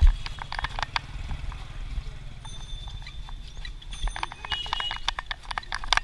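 Cycle rickshaw rolling over a rough street: a low rumble with an uneven run of sharp clicks and rattles, several a second, and a thump at the very start. A high ringing tone sounds for about a second and a half in the middle, then briefly again.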